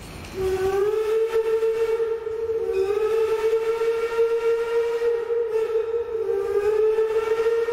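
Steam locomotive whistle blowing one long, steady blast that rises in pitch as it opens, then twice sags and climbs back, about a third and three quarters of the way through.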